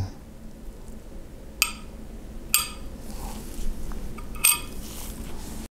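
Three small, sharp clinks, the first about a second and a half in: an Antlia narrowband filter in its metal cell being dropped into and settled in its slot in a ZWO seven-position filter wheel.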